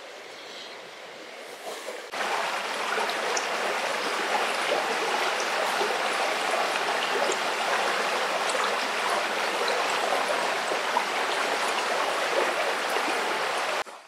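Shallow river water rushing over stones, a steady splashing flow. It is fainter at first, jumps louder about two seconds in, and cuts off abruptly near the end.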